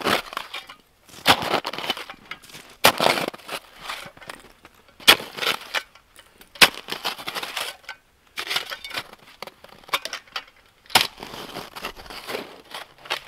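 Snow shovel blade chopping down into packed snow: repeated sharp crunching strikes, about six strong ones a second or two apart, with the crunch of breaking snow after each.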